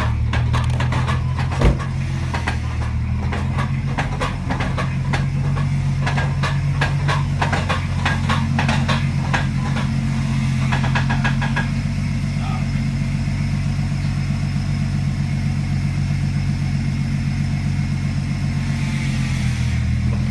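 Car engine idling steadily, with a sharp knock about two seconds in and a run of rapid clicking and ticking that stops about twelve seconds in.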